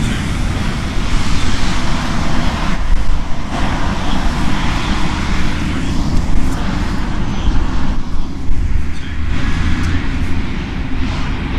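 Loud outdoor noise: a constant low rumble under a rushing hiss that swells and fades every second or two.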